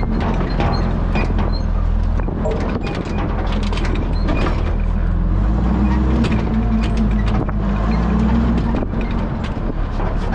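Old fire truck driving slowly: its engine running steadily, the note shifting about halfway through, under constant rattling and clanking from the truck's body and pump gear.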